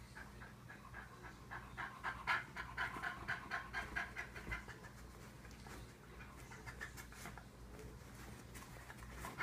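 Fox terrier panting rapidly, about four breaths a second, strongest for a few seconds and then softer.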